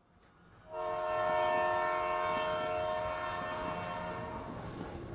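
Train horn sounding one long, steady chord that starts suddenly about three-quarters of a second in and fades out near the end, over the rushing noise of a passing train that carries on after it.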